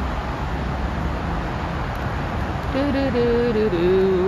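Steady road-traffic noise and outdoor rumble. Near the end a short run of held notes steps downward in pitch, like a voice humming or a brief tune.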